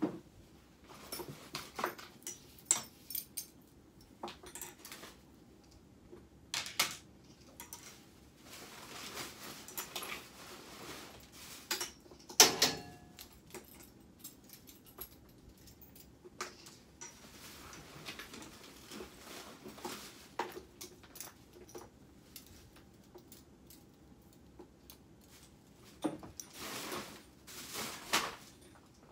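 Clothes hangers clicking and clacking against each other and the closet rail, with clothes rustling, as garments are sorted and hung. The clicks come in irregular clusters, the loudest a sharp clack about halfway through.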